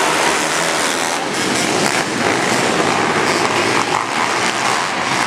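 A pack of pit bikes' small four-stroke engines running hard together in a dense, steady blend of engine noise, with no single bike standing out.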